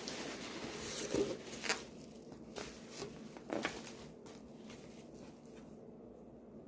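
Packing material rustling and crinkling as an item is unwrapped by hand, with sharp crackles through the first four seconds that die down after that.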